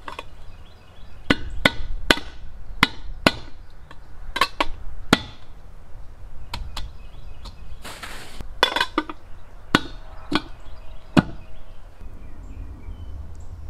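Metal baby moon hubcap being knocked onto a steel trailer wheel: a series of sharp, irregular taps, each with a short metallic ring.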